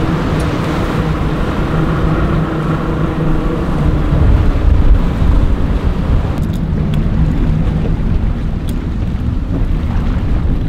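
Outboard boat motors running steadily at low speed, with wind buffeting the microphone, strongest about halfway through.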